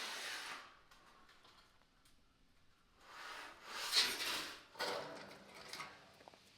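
Wooden boards scraping and rubbing as they are handled and slid into place, in three bursts with a few sharp knocks.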